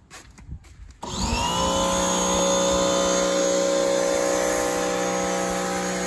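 Electric pressure washer starting up about a second in, after a few faint clicks. Its motor spins up quickly and runs at a steady pitch.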